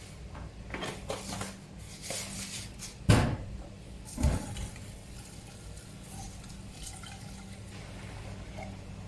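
Household clatter of objects being handled: a few light knocks and clicks, then two louder thumps about three and four seconds in, over a steady hum.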